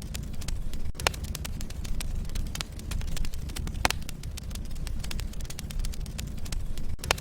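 Wood logs burning in a fireplace: a steady low rumble of flames under many small crackles, with three louder pops, about a second in, near the middle and at the very end.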